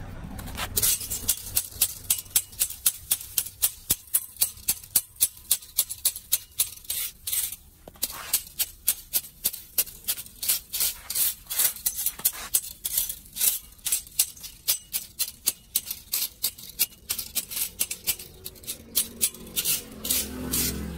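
A flat metal hand tool scraping and clicking against the bars of a steel storm-drain grate, about two sharp strokes a second, as leaves and debris are raked out of its slots.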